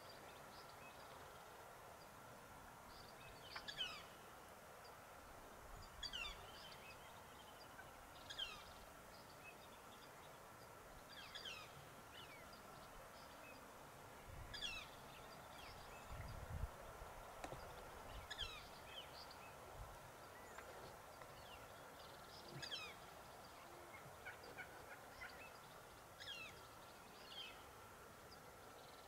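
Wild turkeys calling faintly: short, sharp, falling notes, one every two to three seconds. A faint steady high tone hums underneath.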